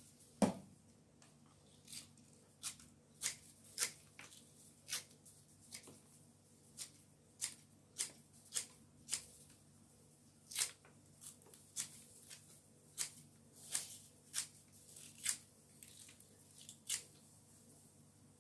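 Kitchen scissors snipping through spring onion stalks: a steady run of short, crisp snips, about one every half second or so, with a brief pause about ten seconds in.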